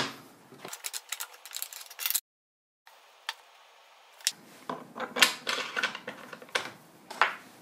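Light clicks and wooden knocks as wooden blocks and a toggle clamp on a plywood table saw sled are moved and set, with the saw not running. The sound drops out completely for under a second about two seconds in.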